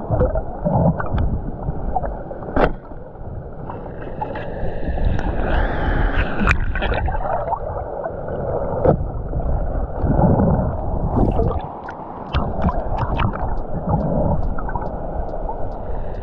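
Muffled gurgling and bubbling of stream water heard underwater, as through a submerged camera, with scattered sharp clicks and knocks.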